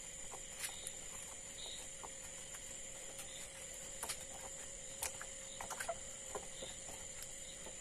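Faint, scattered soft clicks and wet squelches of a hand tossing raw potato slices in a yogurt-garlic marinade in a ceramic bowl, over a faint steady high hum.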